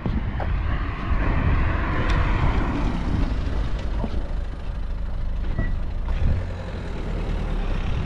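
Heavy road vehicle running close by: a steady low engine rumble, with a hiss that swells and fades over the first three seconds.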